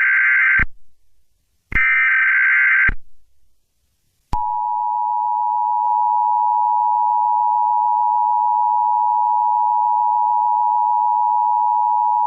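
Emergency Alert System alert tones: two short screeching bursts of SAME header data about a second apart, then from about four seconds in the steady two-tone EAS attention signal, held for about eight seconds.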